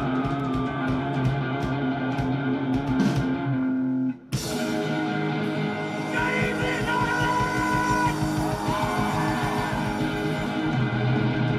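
Rock band playing live, with distorted electric guitars and drums. The sound cuts out for a moment about four seconds in, then the song carries on with held lead-guitar notes.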